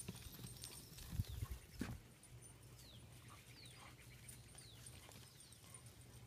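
Pony's hooves thudding on bare dirt, with a cluster of dull thuds between about one and two seconds in, then only faint footfalls. A faint, short, high, falling chirp repeats about every second through the second half.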